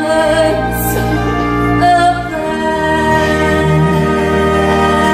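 Slow, tender music with long held chords, the closing bars of a song.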